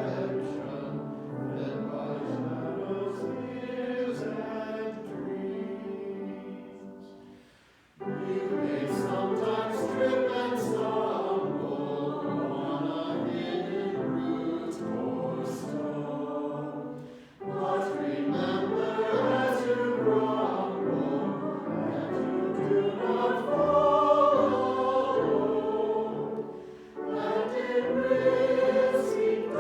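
Church choir singing a choral anthem in sustained phrases; the sound fades out and re-enters sharply about a quarter of the way in, breaks again briefly past halfway, and dips once more near the end.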